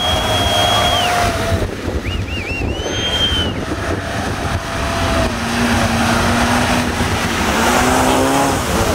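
Off-road 4x4 engines running hard at high revs through deep mud and water, with a constant splashing wash and wind on the microphone. From about the middle, one engine's note holds and slowly climbs in pitch as it revs.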